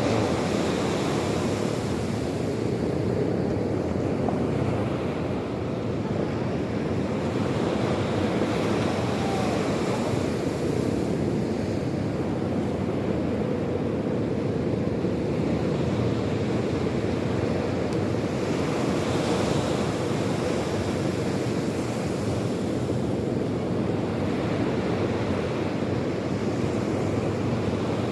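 Sea waves breaking and washing onto the shore, a continuous rushing with a louder wash every several seconds, and wind on the microphone.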